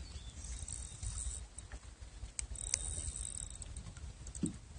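Wind rumbling on the microphone, with a few faint clicks and a brief high hiss twice.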